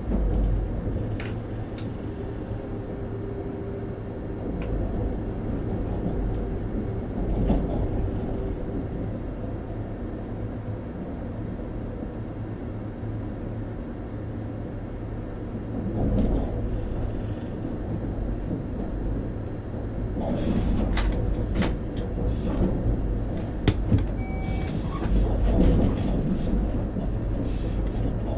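Train running along the track, heard from the driver's cab: a steady low rumble with clicks and knocks of the wheels over rail joints and points, more of them in the last third. One brief high beep sounds near the end.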